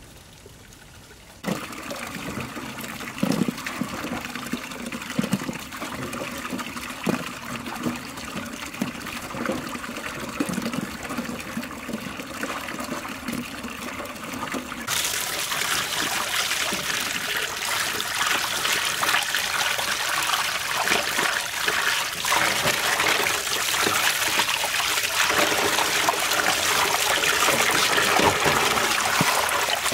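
Water trickling and splashing, stepping up to a louder, hissier flow about halfway through.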